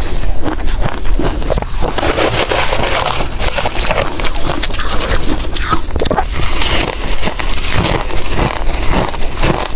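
Ice being bitten and chewed close up: a dense, continuous run of crunching and crackling.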